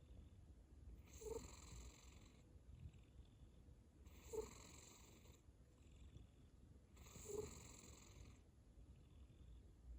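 Domestic cat snoring quietly: three louder breathy snores about three seconds apart, each starting with a short low tone, with fainter breaths in between.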